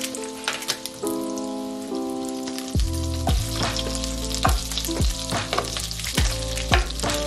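Toffee mixture sizzling and crackling in a stainless steel saucepan as a stick of butter melts into it. Background music plays over it, with a bass beat coming in about three seconds in.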